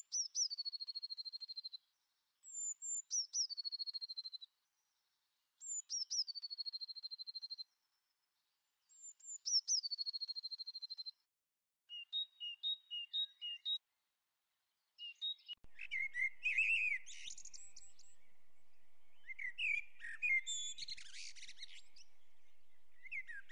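Birdsong: a high call repeated four times about every three seconds, each one dropping into a short steady trill, followed by quick paired chirps and then busier twittering.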